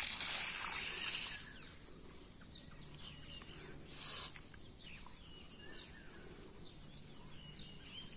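Water from a hose splashing and bubbling in a muddy puddle for about the first second and a half, with another brief splash about four seconds in. Small birds chirp faintly throughout.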